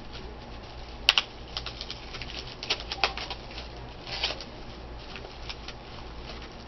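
Light clicks and short rustles of small toy medals and their packaging being handled, with a sharper click about a second in and a cluster of clicks around the middle.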